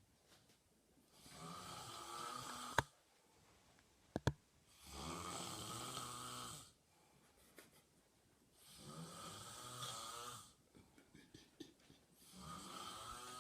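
A man snoring in a slow, even rhythm: about four long snores of some two seconds each, one every three to four seconds, with quiet gaps between. Two sharp clicks sound between the first and second snores, the first of them the loudest sound.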